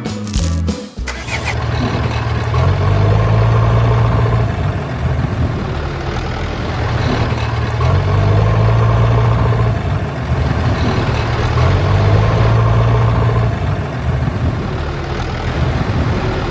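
An engine starts up about a second in and runs steadily, swelling louder three times about four to five seconds apart.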